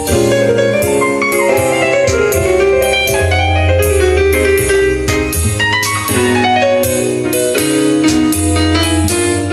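Piano-led instrumental music with a deep held bass line, played back through a McIntosh MC2500 power amplifier and C24 preamplifier hi-fi system.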